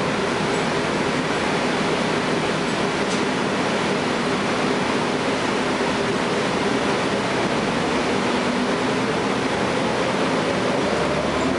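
Cummins ISL9 inline-six diesel and Allison B400R automatic transmission of a Gillig Low Floor bus, heard from inside the passenger cabin, running steadily under way with road noise. A whine in the drivetrain rises slowly in pitch near the end as the bus gathers speed.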